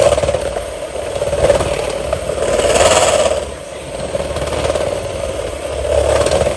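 Electric hand mixer running steadily with its beaters in a bowl of cookie dough, a constant motor whine, with a brief louder hiss about three seconds in.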